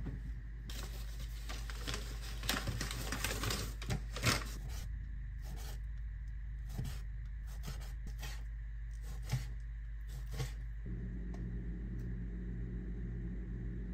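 Cleaver slicing raw chicken on a plastic cutting board: a run of sharp taps of the blade meeting the board, one every half second to a second, after a stretch of rustling and clicking handling. A steady low hum comes in near the end.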